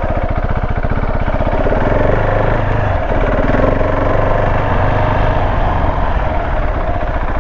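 Motorcycle engine running at low, steady revs, a fast even chug from the exhaust, while the bike is ridden slowly over an off-road track.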